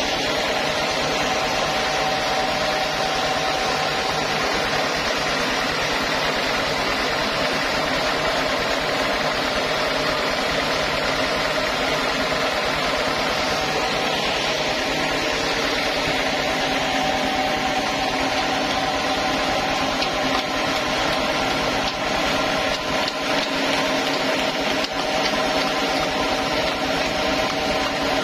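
Large stationary band saw running steadily, its blade cutting lengthwise through a teak slab, with a constant machine hum.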